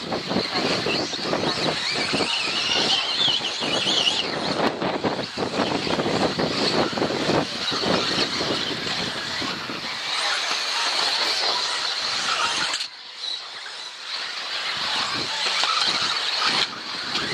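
Radio-controlled 4WD off-road buggies racing, their electric motors whining up and down as they accelerate and brake, with a busy clatter from the cars on the track. It dips briefly about thirteen seconds in, then picks up again.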